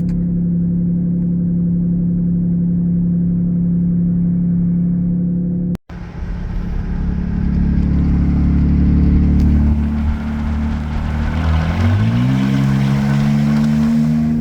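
Jeep Grand Cherokee engine running with its exhaust removed, heard from inside the cabin: a steady low drone, then after a brief cut a louder, rougher drone that rises in pitch as the engine accelerates, about twelve seconds in, and starts to fall near the end.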